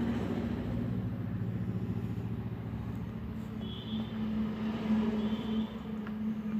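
Motor vehicle engine sound running steadily, with two brief high tones around the middle.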